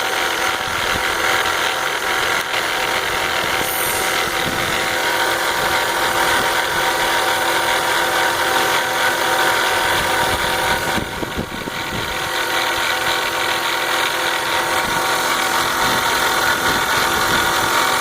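BMW 325xi's 2.5-litre inline-six engine running steadily with a fast mechanical rattle over its hum. The rattle does not change when the DISA intake valve is unplugged, so the owner has ruled that valve out as its cause. The sound dips briefly about eleven seconds in, then carries on as before.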